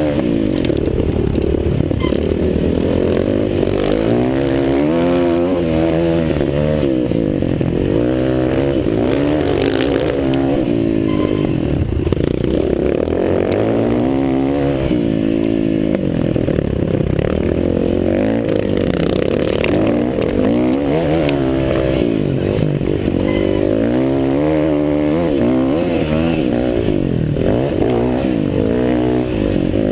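Several motocross bikes running at once, their engines repeatedly revving up and dropping back as they shift and brake around the track, the overlapping rising and falling engine notes continuing throughout.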